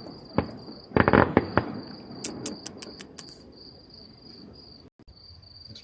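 Distant fireworks going off: a cluster of loud bangs about a second in, then a quick run of crackles, fading out near the middle. Crickets chirp steadily throughout.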